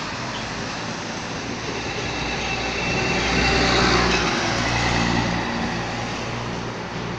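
A motor vehicle passing: a steady rumbling hum that swells to its loudest about four seconds in, then eases off.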